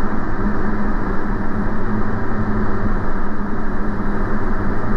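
Diamond DA40's piston engine and propeller droning steadily at approach power, with a constant low hum and no change in pitch.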